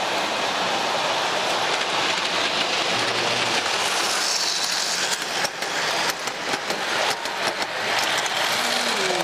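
O gauge tinplate model train running on tinplate track: a steady metallic rattling hiss of wheels on the rails. It breaks into a quick run of sharp clicks from about halfway through, as the coaches pass close by.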